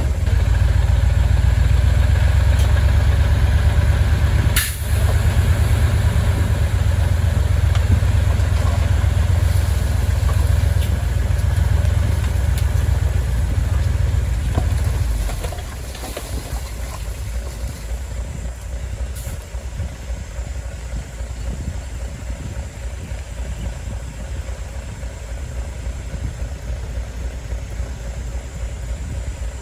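Heavy diesel construction machine engine running with a steady low rumble, dropping clearly in loudness about halfway through. A single sharp knock comes about four and a half seconds in.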